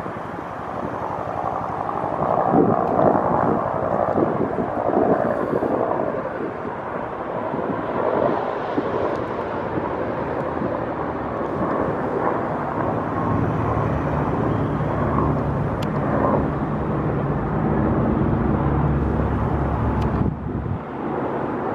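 Outdoor wind buffeting the microphone over the steady drone of aircraft engines. The low drone grows stronger in the second half and drops away suddenly near the end.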